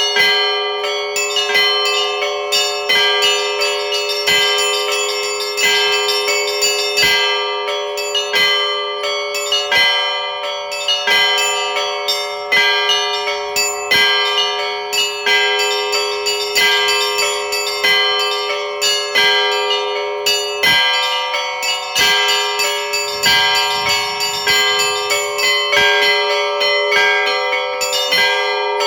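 Orthodox church bells rung by a bell ringer in a continuous peal: quick, even strikes of the smaller bells, about two or three a second, over the lasting ring of a larger bell.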